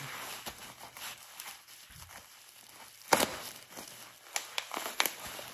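Packing tape and plastic parcel wrapping being slit with a pocket knife and torn open by hand, scratching and crinkling, with a few short sharp rips, the loudest about three seconds in.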